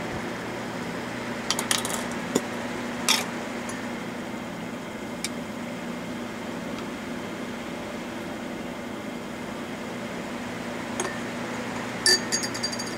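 A metal teaspoon clinks against a ceramic mug of tea in a quick run of ringing taps near the end, stirring in honey. Earlier come a few light clicks and knocks from handling the honey jar and spoon, over a steady room hum.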